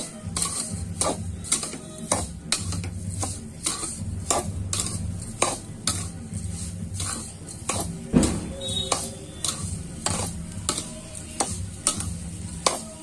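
Slotted steel spoon stirring and scraping a crumbly semolina, khoya and sugar mixture against a metal kadhai, with a sharp scrape about twice a second.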